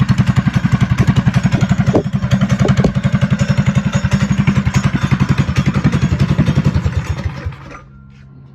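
Trailmaster Hurricane 200X mini bike's 196cc single-cylinder four-stroke engine, fitted with a stage 1 exhaust, air filter and jet, idling with an even beat of about a dozen firings a second. It winds down and stops near the end.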